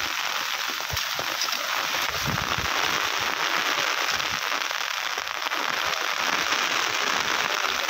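Steady rushing of a flooded river overflowing its bank, mixed with rain, with scattered low irregular thumps.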